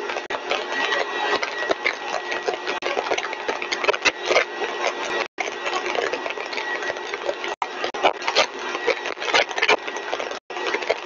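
Single-stage rotor–stator compressor rig running steadily at full design speed, about 7200 RPM: a steady rushing machine noise with a faint high steady tone and crackling throughout. The sound cuts out briefly three times.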